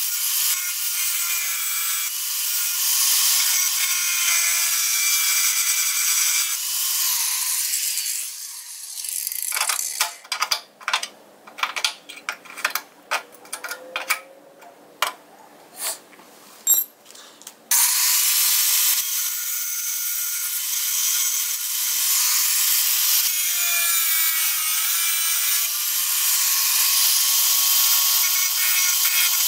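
Red Bauer angle grinder cutting into the steel seam of a car's radiator support, a steady high-pitched grinding. About nine seconds in it stops, and a string of sharp metallic clicks and taps follows as a hand tool works at the seam; about eight seconds later the grinding starts again.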